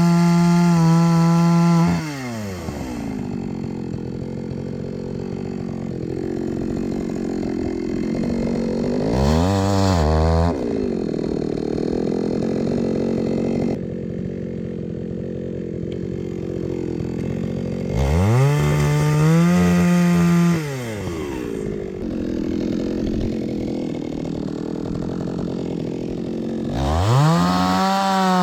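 Two-stroke chainsaw cutting logs for firewood. It runs at high steady revs, drops to a lower, rougher note about two seconds in, blips up briefly around ten seconds, and revs high again twice, from about eighteen seconds and again near the end.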